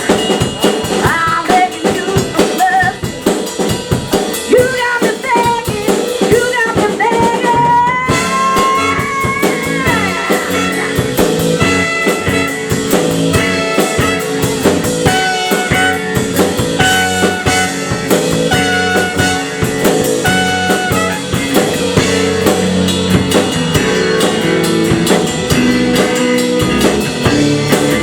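Live rock band playing loudly: a drum kit keeping a busy beat under guitar, in a blues-rock style.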